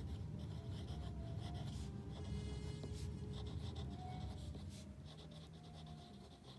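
Pen scratching on paper, writing a line of cursive in a run of short strokes.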